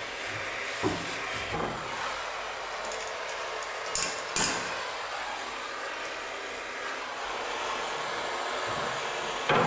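Steady hiss of a plumbing torch flame heating a soldered copper joint to free the old pipe piece and coupling, with a few sharp knocks of metal against the pipe.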